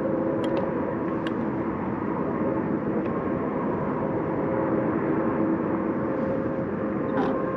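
Electric trolling motor running steadily, a constant hum with several fixed tones over a noisy wash, moving the boat slowly. A few faint ticks in the first second.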